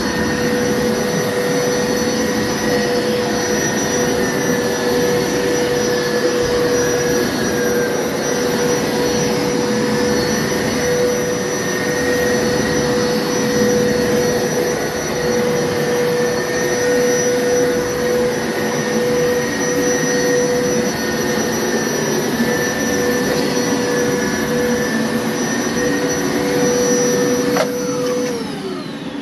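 Hoover upright carpet washer running steadily with a motor whine and suction noise, switched off near the end, its pitch falling as the motor winds down.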